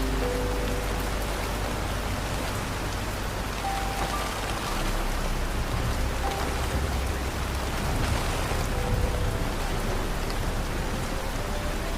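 Steady rain falling, with a low rumble beneath it and a few soft held musical notes at different pitches drifting over it.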